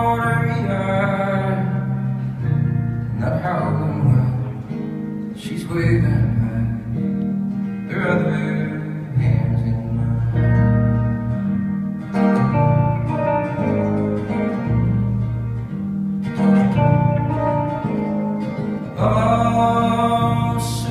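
A live song: a singer's voice in phrases a few seconds apart over continuous guitar accompaniment.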